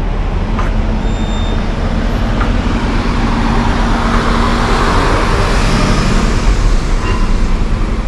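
Mahindra Thar on new Ultramile mud-terrain tyres being driven hard, engine running under a steady tone with tyre and road noise that swells around the middle.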